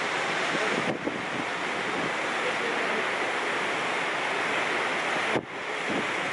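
Steady rushing noise, dipping briefly about a second in and again past five seconds.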